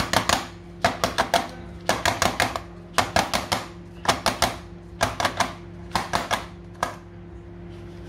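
Spoons clinking in quick runs of four or five taps, about once a second, as batter is knocked off them into a cake tin. A steady low hum runs underneath.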